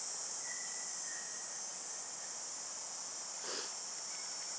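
A steady high-pitched drone of insects. There is a faint thin whistle in the first second or so and a brief soft noise about three and a half seconds in.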